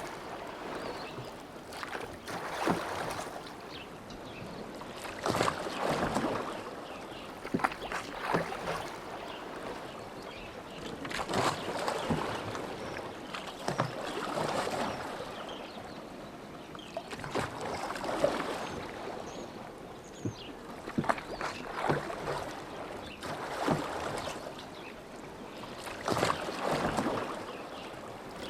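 Oars of a rowboat dipping and pulling through lake water, a splash and gurgle about every three seconds in a steady rowing rhythm.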